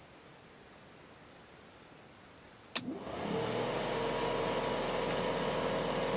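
The timer's relay clicks about three seconds in, and the electric oil-cooler fan motor spins up within half a second to a steady whirring hum with a whine. This is the countdown timer reaching its end and switching the fan on.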